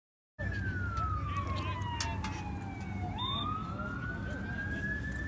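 Siren wailing in a slow cycle. It cuts in about half a second in, falls steadily in pitch for over two seconds, rises again, and begins to fall once more near the end.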